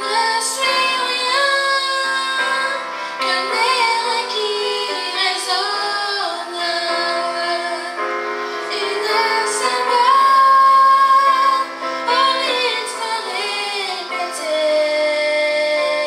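A woman singing a slow song in French into a microphone over a PA, backed by keyboard, holding a long high note about ten seconds in.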